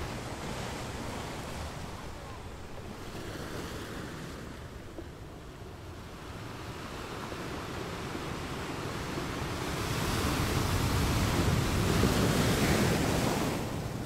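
Wind buffeting the microphone over the wash of water, a steady noisy rumble that gusts louder about ten seconds in and eases near the end.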